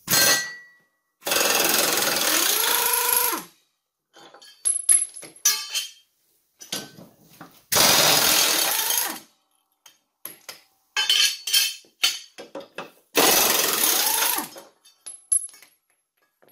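Pneumatic impact wrench hammering in three bursts of a second or two each, spinning the blade bolts off a lawn tractor's mowing deck; each burst winds down at its end. Short metal clinks and knocks come between the bursts as the blades and bolts come off.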